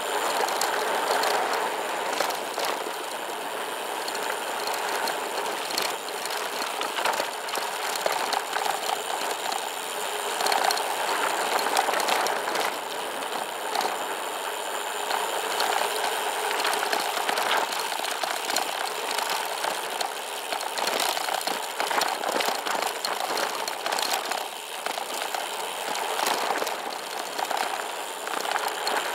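SCOTT Addict Gravel 10 gravel bike rolling fast over a loose-rock dirt road: tyres crunching on gravel and the bike rattling, with many small knocks from stones and bumps.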